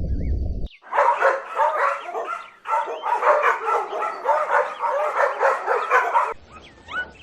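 Several dogs yelping and whining over one another in a dense run of short, arching cries. It starts about a second in and cuts off abruptly near the end.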